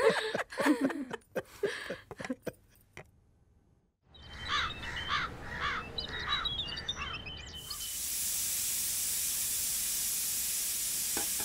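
Birds calling in a repeated run of short chirps over a low hum, then, about seven and a half seconds in, a stovetop pressure cooker hissing steadily as steam escapes past the weight on its vent. At the start, voices and laughter fade out.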